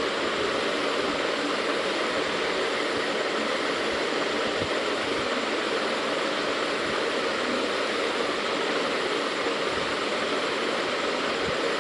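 Steady, unchanging rushing noise, a constant background hiss.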